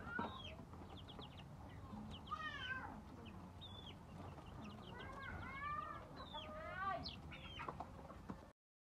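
Young Khmer village (srae) chicken chicks peeping: many short, high, falling cheeps, with longer, lower arching calls about two seconds in and again from about five to seven seconds in. The sound stops abruptly near the end.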